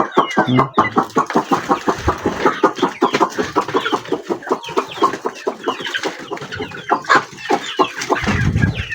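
A flock of free-range village chickens clucking busily, many short clucks overlapping in quick succession.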